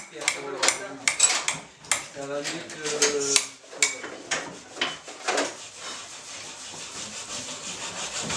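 Sharp clinks and taps of small metal objects against hard surfaces, quick and many in the first half, thinning out later, with indistinct voices of a crowd in a small room.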